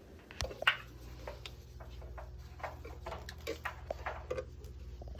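Scattered small clicks and taps from handling the aquastat relay box and its parts, over a low steady hum that starts about half a second in.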